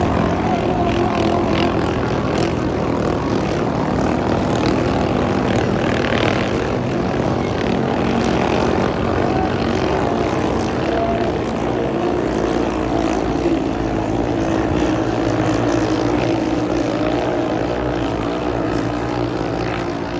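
Drag boat engine running loud and steady, its pitch holding level throughout.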